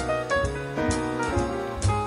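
Background jazz music: held melody notes over a bass line, with a steady drum beat.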